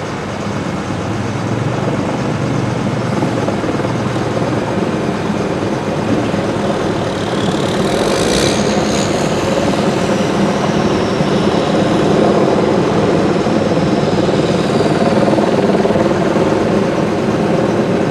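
Vehicle engine idling steadily, with a faint high whine that comes in about eight seconds in and slowly falls away.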